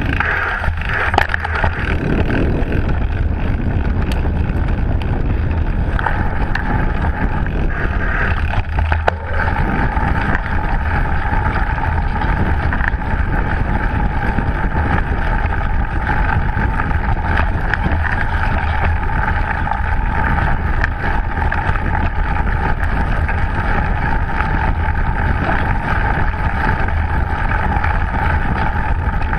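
Wind rushing over the microphone of an action camera mounted on a mountain bike at speed, with the rumble of the tyres on a dirt trail. A few sharp knocks come from the bike jolting over bumps, about a second in and again near nine seconds.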